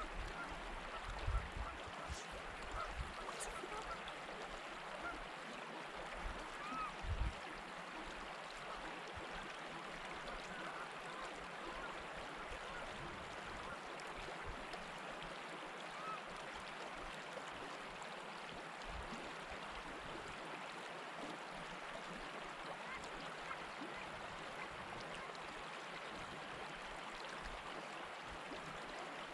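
Running water rushing steadily. Low thumps on the microphone come now and then in the first several seconds.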